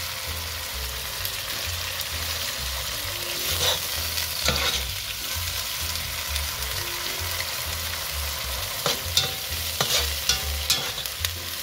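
Ground beef sizzling as it browns in hot oil in a vitrified steel pot. It is broken up and stirred with a utensil that clicks and knocks against the pot now and then, more often near the end.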